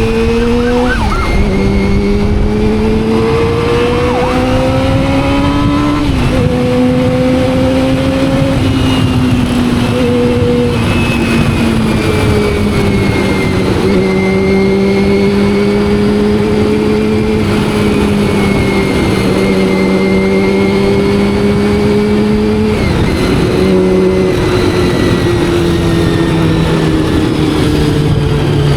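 Honda CBR400RR's carbureted inline-four engine pulling through the gears under way: revs climb, drop sharply at a shift about a second in and again at about six seconds, then rise and fall gently, with another drop near the end.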